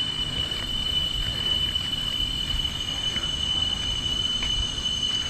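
Steady high-pitched drone of forest insects, one unbroken tone, over a low rumble.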